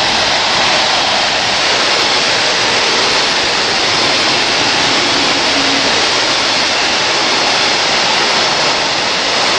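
Long freight train of covered bogie wagons rolling past close at speed behind a Class 66 diesel locomotive: a loud, steady rush of wheels on rail and displaced air that does not let up.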